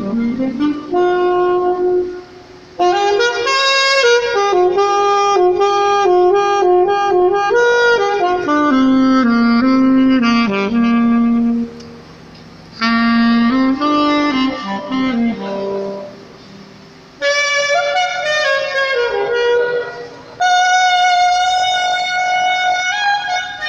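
Alto saxophone playing an improvised solo melody in phrases, with short breaks between them.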